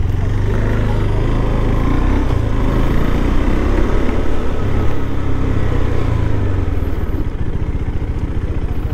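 KTM motorcycle engine running under way, heard from the rider's seat at road speed. It eases off near the end as the bike slows to a crawl.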